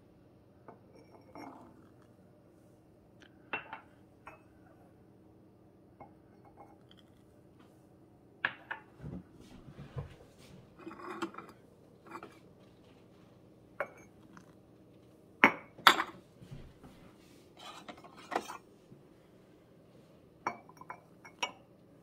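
Small ceramic espresso cups and glass mugs clinking and knocking as they are handled and set down on a stone countertop while espresso shots are poured into frothed milk: scattered light clinks, the loudest two close together about two thirds of the way in.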